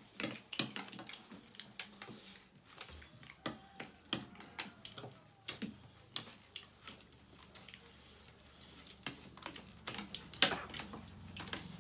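Metal spoons and forks clicking and scraping on ceramic plates as several people eat, in irregular light taps with one sharper clink about ten and a half seconds in.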